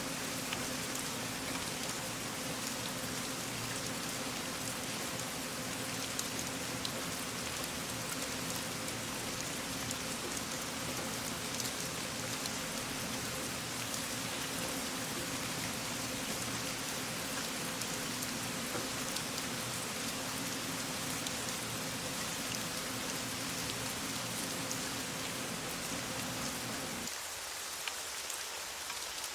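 Steady rain with many small drops pattering. A low hum with a few steady tones underneath cuts off suddenly near the end.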